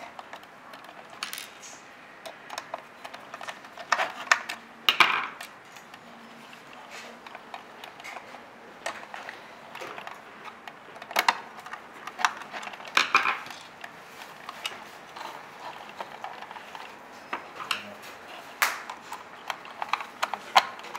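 Irregular clicks, taps and short scraping rattles of hard plastic parts being handled and fitted: the RC tank's plastic turret shell and gun unit being knocked and pushed into place, with a few louder clusters of rattling.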